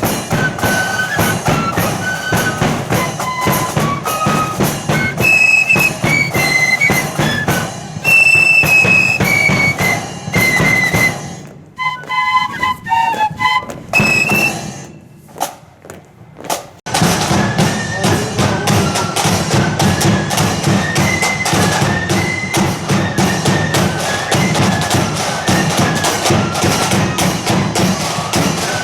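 Marching flute band playing a tune on flutes over bass and side drums. About 11 s in the playing thins and drops off for several seconds, then the full band comes back in at about 17 s.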